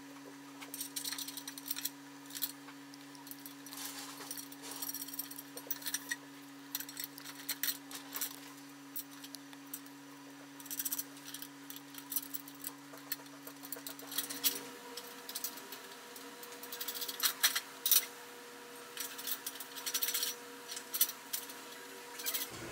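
Scattered light metal clinks and jingles of nuts, bolts and washers being handled and set in place by hand as the legs of a heater stand are bolted loosely to its support pole.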